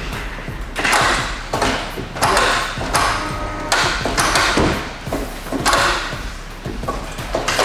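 Aluminium canopy knocking and scraping on the ute tray as it is settled onto its mounts, a run of short metallic clunks and rattles about once a second.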